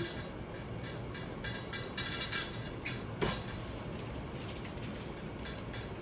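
52-inch Craftsman ceiling fan running with a steady whir and irregular light clicks, one sharper click a little past halfway. The owner suspects the clicking comes from screws he dropped, leaving the housing loose.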